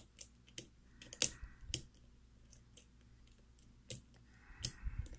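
Lock pick working the pins of a brass Falcon pin-tumbler lock cylinder under tension: scattered small sharp clicks, irregularly spaced, with brief stretches of light metal scraping about a second in and near the end.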